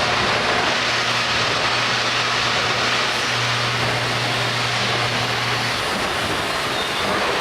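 Miyano BND-34S CNC lathe running: a steady, loud machine noise with a low hum underneath that stops near the end.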